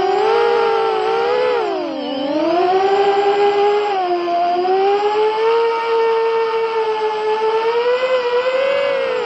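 Four HGLRC 1407 3600KV brushless motors spinning 5-inch props on a 4S ultralight FPV quadcopter, heard from on board: a loud buzzing whine whose pitch rises and falls with the throttle. It drops sharply about two seconds in, then climbs back and wavers higher through the rest.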